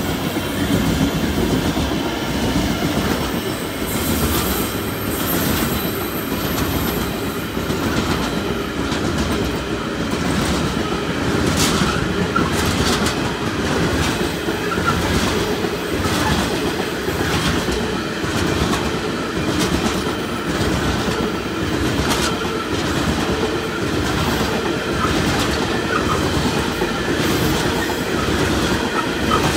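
Loaded-looking coal train of open hopper wagons rolling past close by, the wheels clicking over the rail joints in a steady clickety-clack behind a continuous rumble. A thin high wheel squeal comes in for a few seconds about four seconds in. The last of the 82 class diesel locomotives hauling it passes right at the start.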